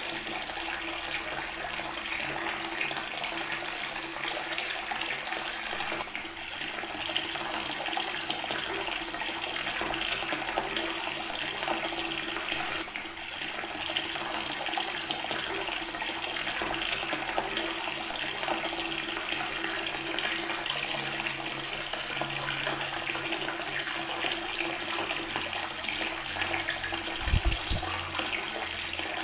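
Water from a tap running steadily and splashing onto natural stone. A brief low thump sounds once near the end.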